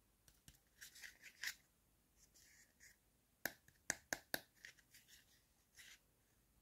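Small plastic and foam toy pieces handled by fingers: faint scrapes and rustles, then four sharp plastic clicks in quick succession a little past the middle.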